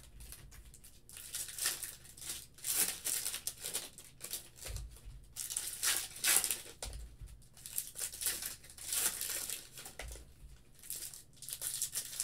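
Foil wrappers of Bowman baseball card packs being torn open and crinkled by hand, one pack after another, in repeated bursts of tearing and crinkling every second or two. A few dull low knocks come in between.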